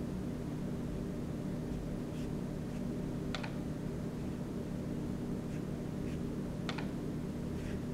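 Faint, brief swishes of a paintbrush stroking paper, with two sharper strokes a few seconds apart, over a steady low hum.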